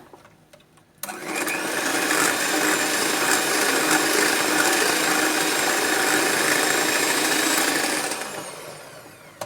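Electric mixer beating cake batter: the motor starts abruptly about a second in, runs steadily, then is switched off and spins down with falling pitch near the end.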